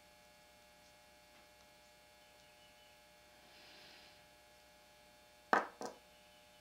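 Two sharp metallic clicks about a third of a second apart near the end, as a small hand tool works on the steel bolt of a Winchester Model 1903 rifle. A steady faint hum runs underneath.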